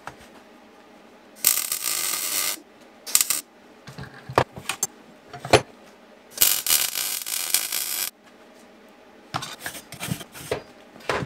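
Electric arc welding on a steel exhaust pipe: crackling bursts of welding, one about a second long, a brief spurt, then one nearly two seconds long, with light metal clinks in the pauses between.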